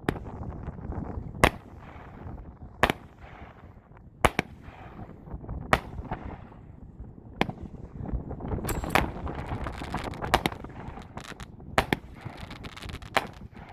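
A 36-shot consumer firework cake firing: sharp shots about every second and a half, each trailed by a crackling smear. About nine seconds in, the shots come faster, with more continuous crackling.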